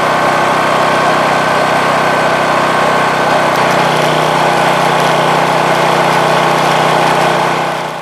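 Wire-feed (MIG) welder laying a bead on the mixer drum's cast-iron seam: a steady, loud crackling buzz of the arc with a few steady tones through it. It cuts off suddenly near the end, as the welder's wire reel runs out.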